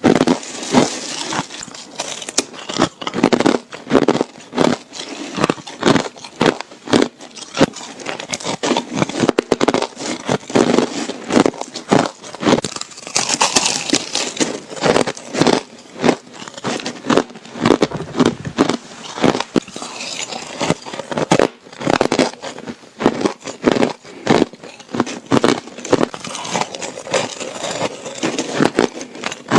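Ice being bitten and crunched between the teeth: dense runs of sharp cracks and crunches, bite after bite.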